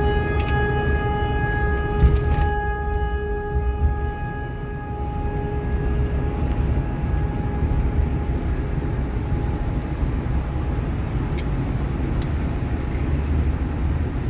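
Steady low rumble of a double-decker coach bus's engine and tyres at highway speed, heard from inside the cabin. A single ringing tone of one steady pitch starts at the very beginning and fades away over about six seconds.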